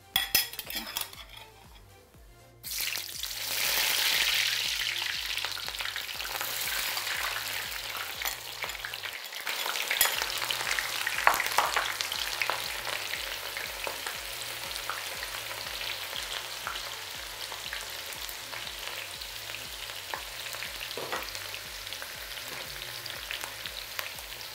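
Sliced onions going into hot oil in a frying pan: a few taps of the spatula on the plate, then a sudden loud sizzle about three seconds in that settles into steady frying, dotted with clicks and scrapes as the onions are stirred. They are being fried to a golden colour.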